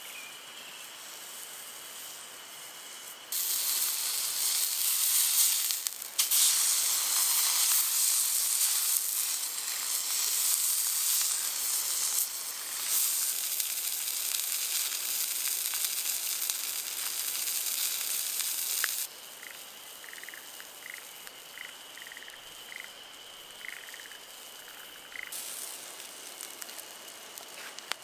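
A thick block of meat sizzling loudly on a hot iron plate over a grill; the hiss starts abruptly a few seconds in, falters briefly, and cuts off about two-thirds of the way through. Before and after it there is quieter outdoor ambience with a steady high tone, and a run of short, evenly spaced chirps comes after the sizzling stops.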